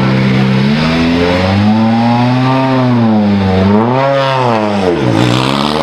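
Volkswagen Polo R WRC's turbocharged four-cylinder rally engine revved from idle, close to the exhaust. The pitch climbs slowly to a peak twice, then drops back to idle near the end.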